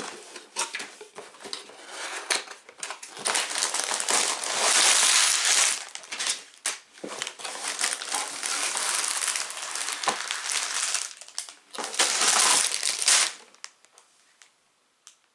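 Cardboard LEGO box being opened and plastic parts bags crinkling and rustling as they are pulled out and set down, with small knocks of handling. Loudest about four seconds in and again near twelve seconds, stopping about a second and a half before the end.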